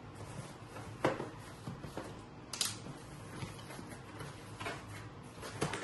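Cardboard shipping boxes handled on a stone tabletop: a few scattered light knocks, taps and scrapes, one of them sharper than the rest.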